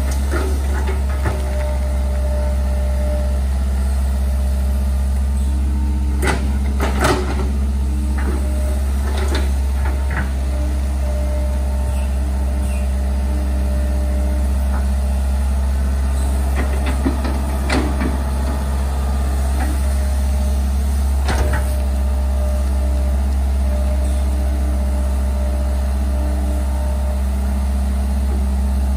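Hitachi hydraulic excavator's diesel engine running steadily while it digs a ditch, with a few short clanks and scrapes as the bucket works the soil, most of them between about six and twenty-two seconds in.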